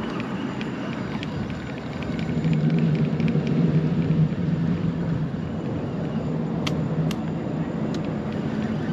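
A low, steady engine drone that grows louder about two and a half seconds in, with a few sharp clicks near the end.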